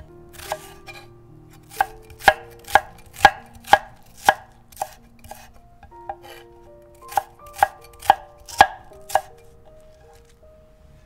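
Chef's knife cutting green onion on a wooden cutting board: crisp knife-on-board knocks about two a second, a run of about seven, a pause of roughly two seconds, then about five more.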